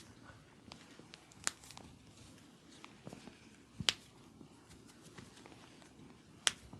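Sharp pops of joints being cracked during a massage: three loud cracks, about a second and a half in, about four seconds in and near the end, with softer clicks and the rustle of hands on skin between.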